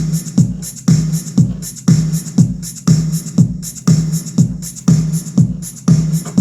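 Background music with a steady, punchy drum beat, about two beats a second.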